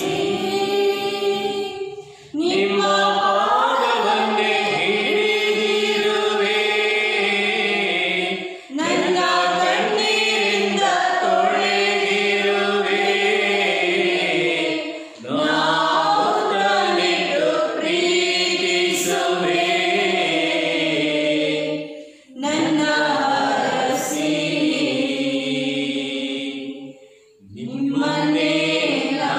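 Voices singing a Kannada devotional hymn together, in long held phrases with short pauses for breath about every six seconds.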